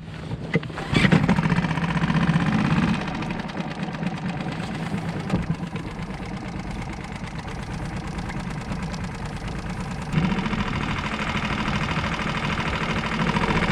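Small outboard motor on a Solo Skiff starting up: it catches about a second in, runs fast and loud for a couple of seconds, then settles into steady running. It picks up speed again about three quarters of the way through.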